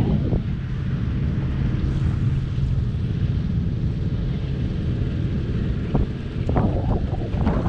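Engine of a rigid inflatable boat running steadily with a low hum, under wind buffeting on the microphone. About six seconds in, water starts slapping against the hull in a quick run of splashes.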